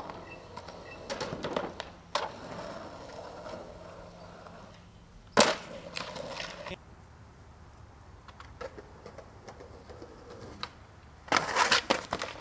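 Skateboard on concrete: wheels rolling and the board clacking against the ground, with the loudest slap about five seconds in followed by a second of rolling. Near the end comes a burst of clattering as a skater bails and the board tumbles across the pavement.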